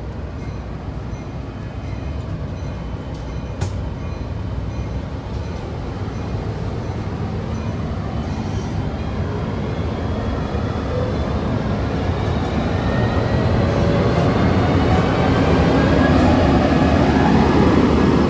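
Passenger train pulling out under diesel push: bilevel cars rolling past, the sound growing steadily louder as the Siemens Charger diesel locomotive pushing at the rear comes alongside, with tones rising in pitch as it picks up speed. A single sharp click a few seconds in.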